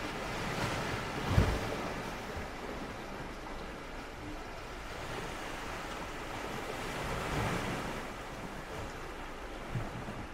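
Sea waves washing onto the beach, a steady hiss that swells twice, with a short low thump about a second and a half in.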